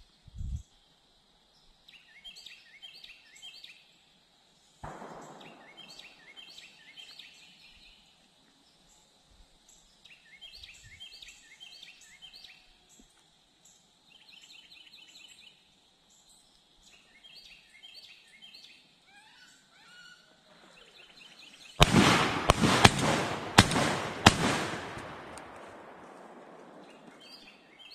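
Small birds calling in short rapid bursts of chirps every few seconds. About 22 seconds in comes a quick run of loud, sharp shotgun shots over roughly two and a half seconds, with echoes fading afterwards through the trees.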